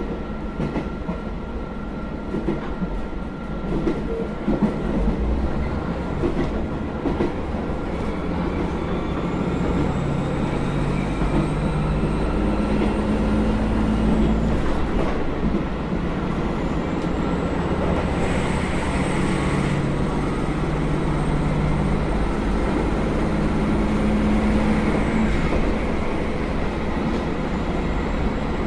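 JR Hokkaido KiHa 201 series diesel railcar running, heard from inside the car. Over the wheel rumble and rail-joint clicks, the engine note climbs twice as a rising whine, each time falling back sharply: once near the middle and again a few seconds before the end.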